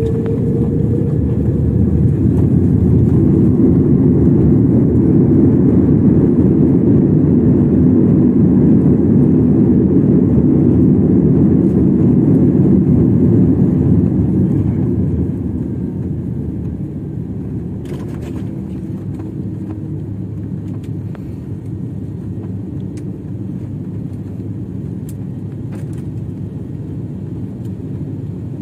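Jet airliner's engines and reverse thrust heard from inside the cabin during the landing rollout: a loud, deep roar mixed with runway rumble, easing about halfway through to a lower steady rumble as the aircraft slows to taxi speed.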